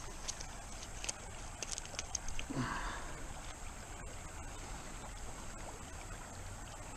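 Shallow creek water running and trickling over rocks, a steady wash. A few light clicks come in the first couple of seconds, and a short brief sound comes about three seconds in.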